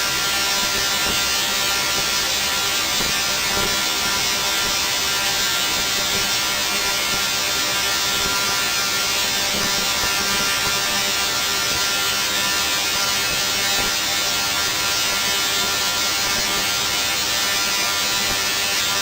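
Dual-resonant solid-state Tesla coil (DRSSTC) firing, its spark discharge making a loud, steady buzz at one fixed pitch with no breaks.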